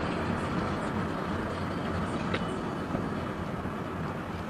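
Steady road, tyre and engine noise from inside a moving car's cabin, an even rumble and hiss.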